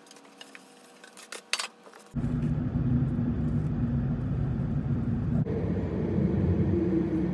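A few faint clicks, then about two seconds in a car's steady low engine and road rumble starts abruptly, heard from inside the cabin, its hum stepping up in pitch a little over halfway through.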